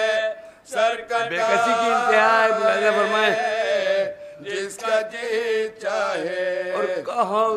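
Several men chanting an unaccompanied Urdu mourning recitation together, drawing out long held, wavering notes. There are short breath pauses between phrases, one near the start and one about four seconds in.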